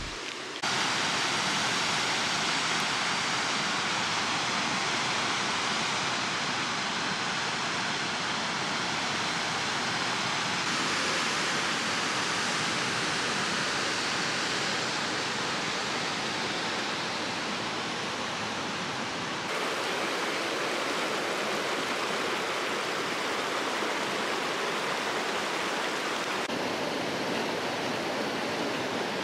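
Steady rush of water from a small waterfall and a stream running over rocks, shifting slightly in tone a few times.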